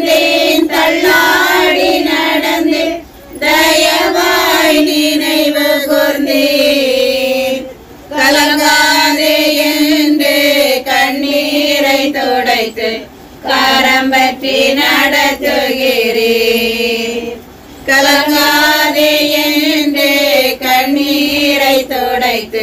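Several high voices singing a Tamil Christian worship song together, in long held phrases with short breath breaks between the lines.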